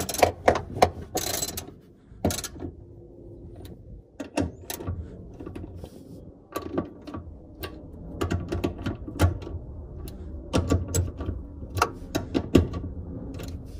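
Hand ratchet wrench clicking in several quick runs of strokes with short pauses between them, tightening the nuts on a fuel pump mounting flange.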